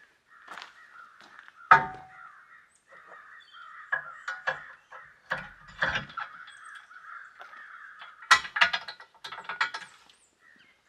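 Sharp metal clicks and knocks from a bumper-mounted swing-out spare-tire carrier being swung shut and latched, loudest about two seconds in and again near the end. Birds chatter steadily behind them.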